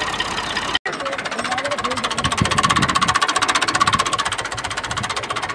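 An engine running with a rapid, even knock, with voices over it. The sound drops out completely for an instant a little under a second in.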